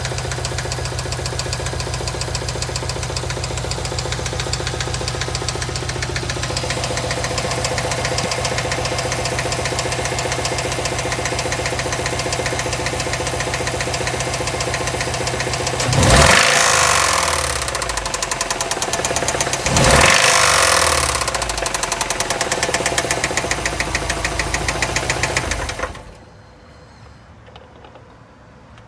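2008 Subaru Impreza WRX STI's turbocharged flat-four engine idling with a steady, fast knocking, revved briefly twice, then shut off.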